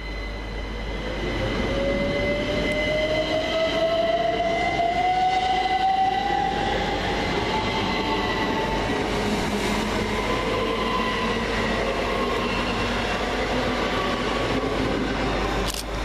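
Two coupled Class 387 Electrostar electric multiple units pulling away, their traction motors giving a whine that rises steadily in pitch as the train gathers speed, over the steady running noise of the train.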